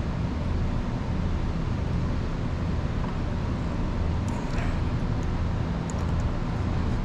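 Steady low background hum, with a few faint small ticks of parts being handled.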